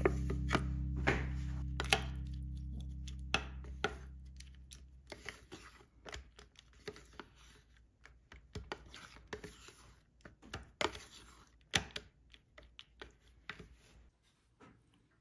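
Metal spoon stirring and scraping in a plastic yogurt cup, mixing in small chocolate candies and peanuts: irregular clicks and short scrapes. Background music fades out over the first few seconds.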